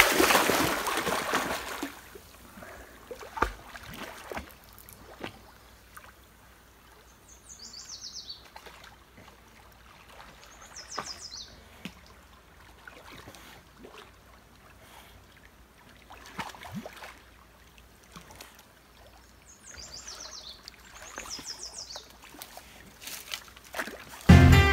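A loud splash into a river, then soft, irregular splashing from an English bulldog paddling as it swims. A bird sings a short falling trill four times, and music comes in right at the end.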